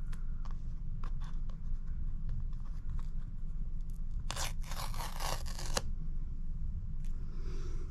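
Paper pull-tab seal being torn off the side of an iPhone 15 Pro Max box. A few faint handling clicks come first, then a loud tearing rip of about a second and a half starting about halfway through.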